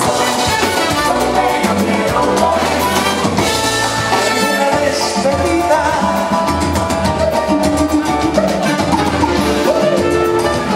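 Live salsa band music with drums and percussion, and a male singer singing into a microphone over it.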